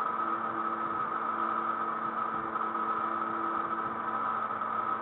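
Steady machine hum with several held tones, like a motor or fan running in the background.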